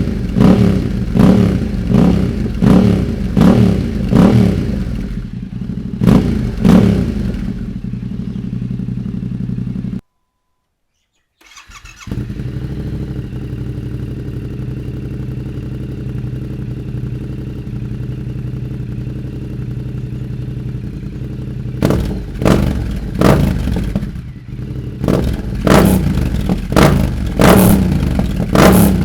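Yamaha Ténéré 700's 689 cc parallel-twin engine revved in quick repeated throttle blips, about one and a half a second, then settling to a steady idle. About ten seconds in the sound drops out for a second and a half, the idle resumes, and quick blips start again near the end.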